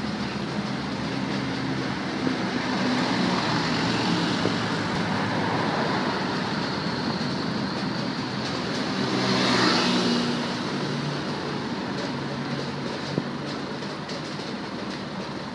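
Steady vehicle noise with a low hum, swelling about nine to ten seconds in and then easing.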